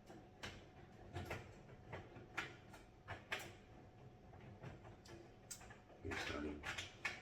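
Irregular metallic clicks and knocks of a screw and tool working against the metal panels of a raised garden bed as its cross-brace is fastened, with a denser, louder rattle about six seconds in.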